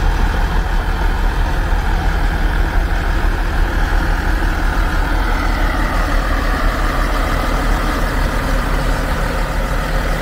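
Heavy diesel engine of a crawler drilling rig running steadily, with a higher whine that slowly falls in pitch midway through.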